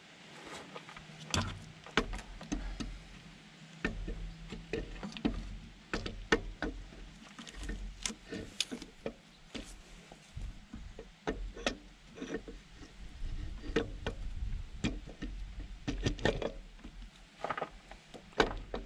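Irregular clicks, taps and light metal knocks as a rebuilt Lucas diesel injection pump is turned and worked onto its mounting studs against the engine, with its drive key being lined up with the shaft slot.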